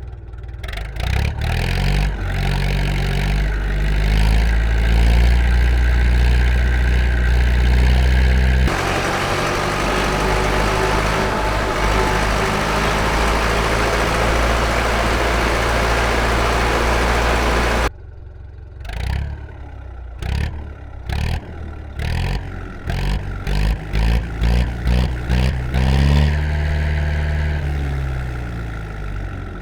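Universal 650M tractor's 4.8-litre diesel engine running, its revs rising at first, then a harsher steady stretch. Partway through it changes suddenly to a run of short rev bursts coming closer together, and near the end the revs fall away.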